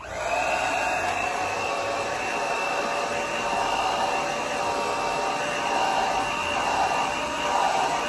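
Irresistible Me Black Diamond hair dryer with a diffuser attached, coming on at the start and running on high speed and high heat: a steady, loud rush of air with a thin high whine, wavering a little as the diffuser is worked through the hair.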